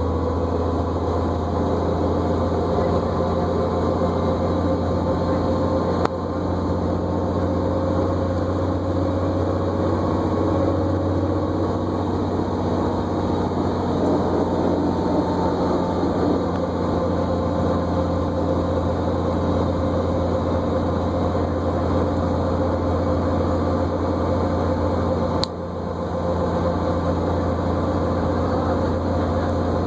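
Inside a New Flyer D40LFR diesel transit bus under way: a steady engine drone with a whine over it that drifts slightly in pitch. Two sharp clicks, about six seconds in and near the end.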